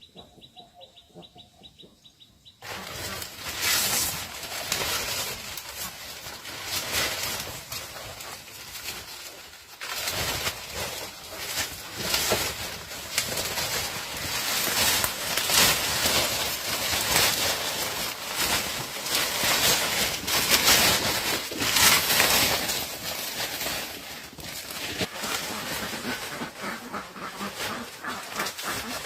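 Poultry on a farm flapping their wings and scuffling, a dense stretch of irregular fluttering that starts suddenly about two and a half seconds in and swells and fades.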